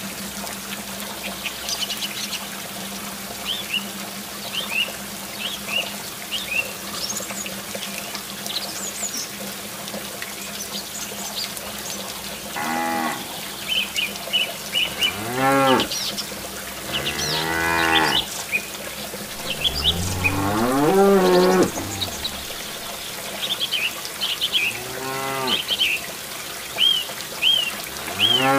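Cattle mooing: about six long, arching calls, starting about halfway through, over steady chirping birdsong and water pouring.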